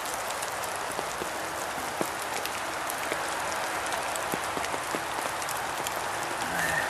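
Steady rain falling in woodland, an even hiss scattered with many small drip ticks.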